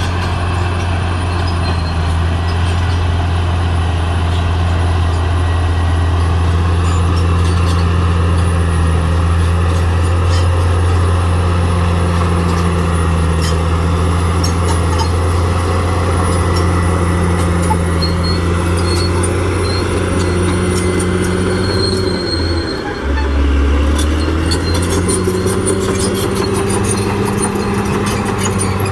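Caterpillar D6R XL bulldozer's diesel engine running steadily under load, with light clicking and rattling over it. About 23 seconds in, the engine note briefly dips lower and then picks back up.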